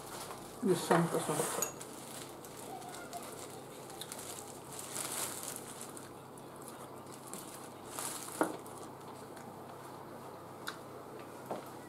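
Close-up eating sounds: chopsticks clicking against small ceramic dip bowls and the mouth sounds of eating seaweed salad, with a brief vocal sound about a second in.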